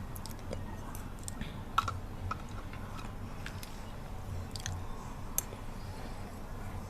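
Close-miked mouth sounds from chewing honey: soft, sticky clicks and smacks scattered over a steady low background hiss.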